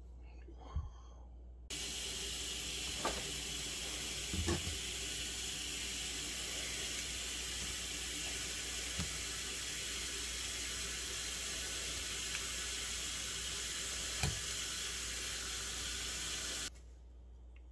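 Water running from a kitchen tap into a stainless steel sink. It starts suddenly about two seconds in and stops suddenly shortly before the end, with a few light knocks along the way.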